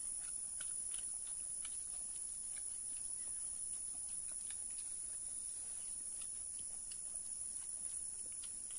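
Steady high insect buzz with faint, scattered little clicks and rustles of hands eating rice off banana leaves.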